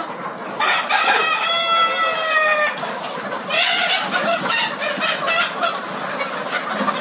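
Chickens calling: one long drawn-out call lasting about two seconds, then from about three and a half seconds in a run of quick, overlapping clucks.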